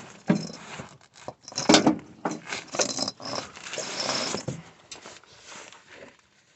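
Front drive shaft (CV axle) being worked out from under a VW/Audi and handled: a run of metal clanks, knocks and scrapes, loudest about two seconds in, fading after about four and a half seconds.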